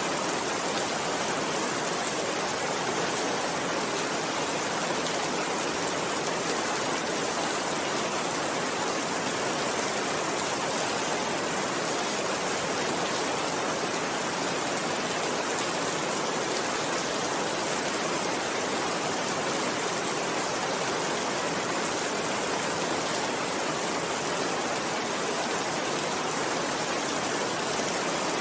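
Steady rainfall: a dense, even hiss with no single drops standing out, unchanging throughout.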